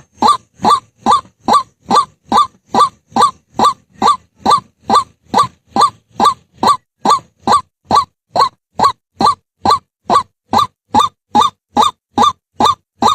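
White-breasted waterhen calling one short, harsh note over and over, about two and a half calls a second, in an even, unbroken rhythm.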